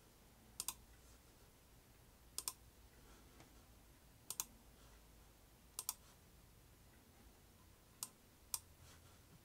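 Computer mouse button clicking about six times, a second or two apart; most clicks come as a quick press-and-release pair. A faint room hum lies underneath.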